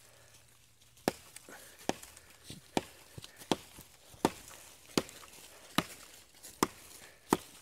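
TOPS American Trail Maker, a large fixed-blade chopping knife, chopping into a dead branch: nine sharp chops at an even pace of about one every three-quarters of a second, beginning about a second in.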